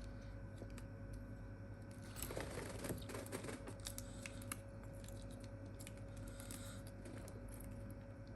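Faint, scattered small clicks and taps of hands working a phone screen and glue applicator on a workbench while glue is laid along the screen's frame, over a steady low hum.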